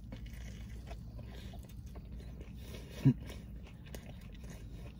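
A person chewing a mouthful of breaded chicken sandwich, with a short hummed "mm" about three seconds in.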